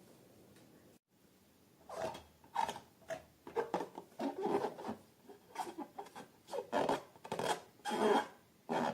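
Slime being squished and stretched by hand, starting about two seconds in with a run of irregular wet squelches and rubbing sounds.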